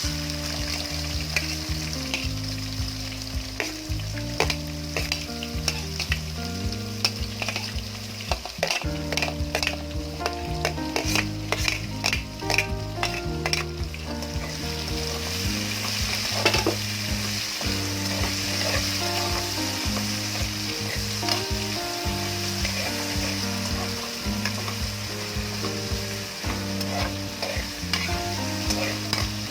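Chopped onions sizzling in hot oil with cumin seeds in a kadhai, frying toward light brown while being stirred. A spoon clicks and scrapes against the pan, most often between about 8 and 14 seconds in.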